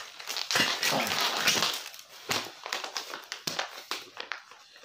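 Plastic packaging of a boxed clothing set rustling and crinkling as it is handled. A dense stretch of rustling in the first couple of seconds gives way to scattered crackles.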